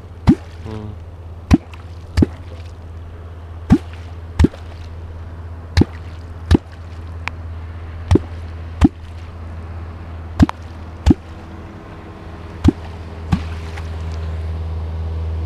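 A Perm kwok, a catfish call, struck into the river water again and again in pairs, a pair about every two seconds. Each stroke is a sharp plop with a short rising gulp, the sound that calls catfish up from the bottom.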